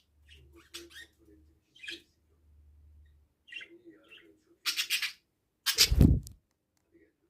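Pet budgerigar chirping in short, scattered notes. Two loud short noises come about five and six seconds in.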